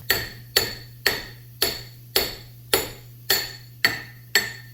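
Nine evenly spaced hammer blows on metal, about two a second, each ringing briefly: driving out the front main seal of a small-block Chevy 350.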